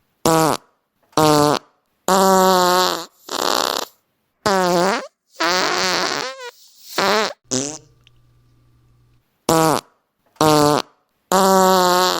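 A rapid string of about eleven fart sounds, short and long, one after another with brief gaps. Several have a pitch that wavers or drops as they go.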